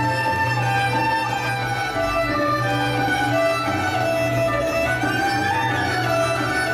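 Serbian folk dance music played live by a small band: a fiddle carries the melody over a steady low held note.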